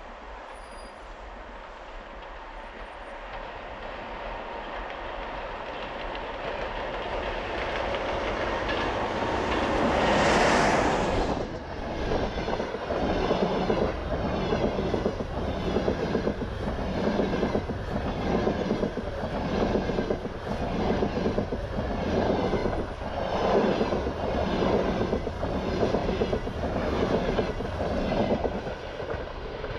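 An EP20 electric locomotive approaches and passes, its noise rising to a peak about ten seconds in. Then the passenger coaches roll by with a regular clickety-clack of wheels on the rails, about once a second.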